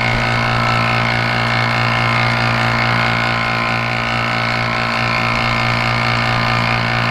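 Electric vacuum pump of a transmission vacuum-test rig running with a steady hum, pulling vacuum through the boost-valve circuit of a 4L80E pump cover under test.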